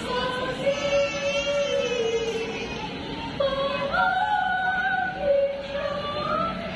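Children's choir singing long held notes, the pitch stepping up to a higher note about three and a half seconds in.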